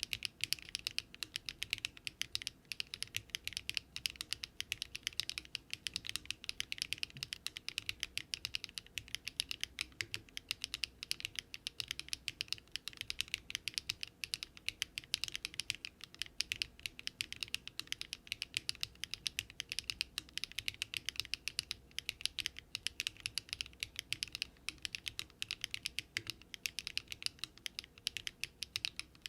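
Continuous fast typing on a Daring Run Polygon-7 custom mechanical keyboard built with Luminkey Astral switches, an FR4 plate and no foam: a steady, rapid stream of keystrokes.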